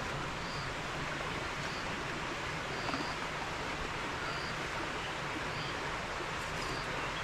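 Steady rushing of a mountain stream, with a faint short high chirp repeating about once every second or so.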